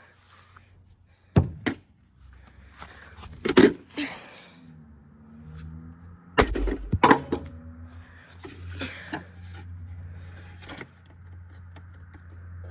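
Sharp knocks and clattering from a plastic toy washing machine being handled and knocked about, in several short clusters. A steady low hum runs underneath.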